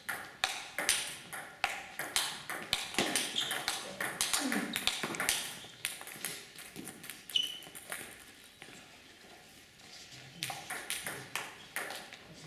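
Table tennis balls clicking sharply off bats and table, several a second through the first half, thinning out around the middle and picking up again near the end.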